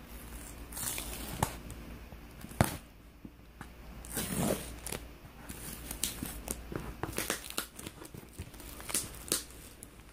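Hands working at a shipping package to get it open: irregular tearing and crinkling of the packaging with many scattered clicks, and one sharp knock about two and a half seconds in.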